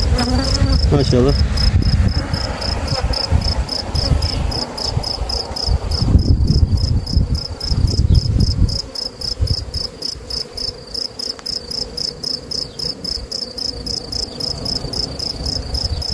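A cricket chirping in rapid, even pulses, with honeybees buzzing around a brood frame lifted from an opened hive. A low rumble on the microphone eases off about halfway through.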